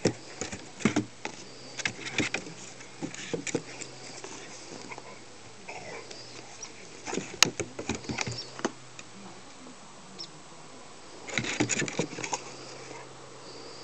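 Two dogs, a pit bull and a rat terrier, romping: scattered clicks, taps and knocks of paws scrabbling on wooden porch steps and dry grass. They come in three short flurries, the loudest near the end.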